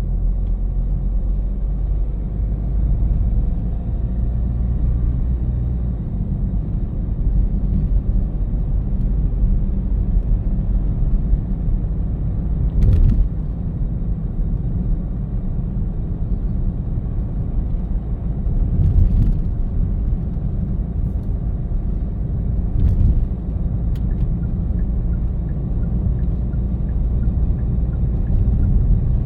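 Car driving at steady speed: a low road-and-engine rumble, with a few brief knocks over bumps about 13, 19 and 23 seconds in.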